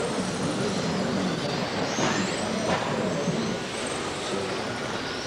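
Electric 1/12-scale on-road RC racing cars running at speed round the track, their motors whining with pitch rising and falling as they pass.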